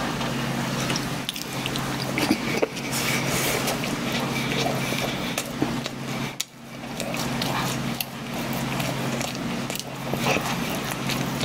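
A person chewing a mouthful of soft chestnut bread close to the microphone: wet mouth clicks and lip smacks come irregularly throughout. A steady low hum lies under it.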